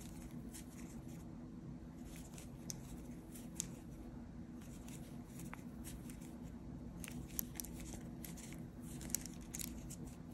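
Faint, scattered clicks and rustles of a metal crochet hook pulling yarn through as single crochet stitches are worked, over a low steady hum.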